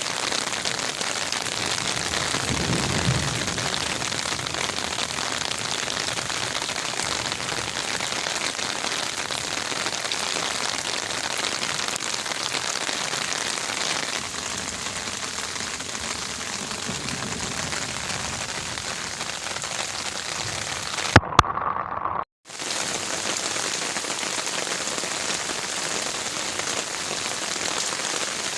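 Heavy rain falling steadily on garden leaves, an even hiss of many drops. About three seconds in a short low rumble rises beneath it. About three-quarters through, two sharp clicks are followed by a drop-out of about a second, and then the rain resumes.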